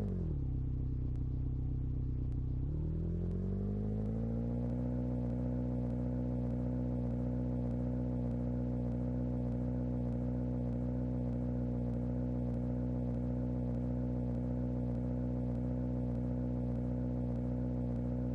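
A motor or engine hum with a steady pitch. The pitch drops sharply at the start, climbs back up over about two seconds a few seconds in, then holds steady.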